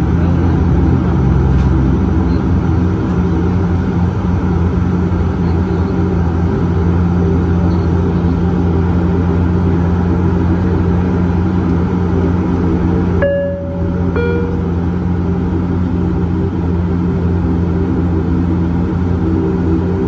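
Dash 8-400's Pratt & Whitney PW150A turboprops running steadily at taxi power, a droning hum with a steady propeller tone, heard from inside the cabin. About 13 seconds in, a two-note falling chime sounds once.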